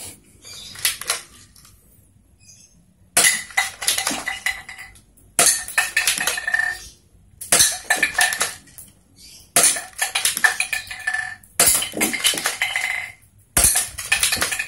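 Spring airsoft Glock 17 replica shot six times, about every two seconds. Each shot hits an empty glue bottle and knocks it over onto a tiled floor, where it clatters and rattles for about a second, and the slide is racked by hand between shots.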